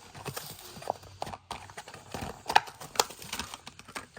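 Plastic blister pack and cardboard backing of a toy car package being pulled open by hand: a string of irregular clicks and knocks, the sharpest two about two and a half and three seconds in.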